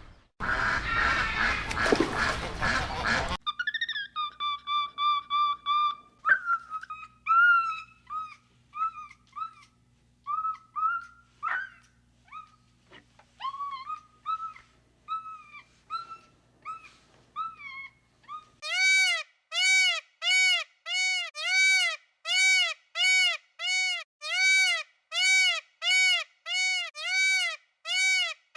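A run of different animal calls: a harsh, noisy call for the first few seconds, then a long string of short, pitched chirping calls over a faint low hum, and from about two-thirds of the way in, identical rising-and-falling calls repeating evenly about once a second.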